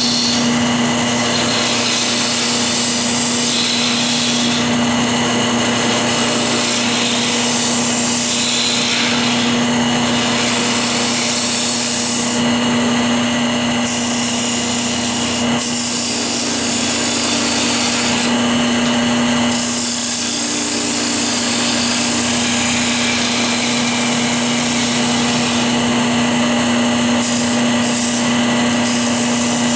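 Wood lathe motor humming steadily while a hand-held turning tool cuts into the inside of a spinning hard hickory blank, a continuous rough scraping hiss of shavings being cut. The hiss comes and goes as the tool is pushed in and eased off.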